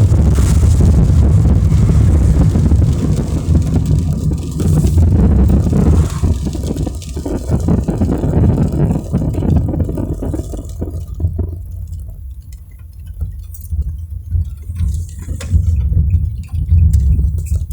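Car driving in the rain: a steady low road and engine rumble under the hiss of rain and wet tyres, with scattered ticks in the middle. The hiss fades about two-thirds of the way through, leaving mostly the rumble, and comes back near the end.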